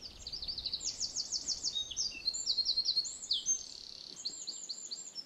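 A small songbird singing one long, fast, high-pitched song of varied trills and rapidly repeated notes, strongest in the first three seconds and fading near the end.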